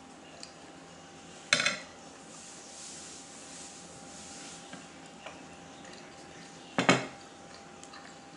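A metal spoon clinking against a ceramic plate twice, sharp and ringing briefly, about a second and a half in and again near seven seconds, over a faint steady hum.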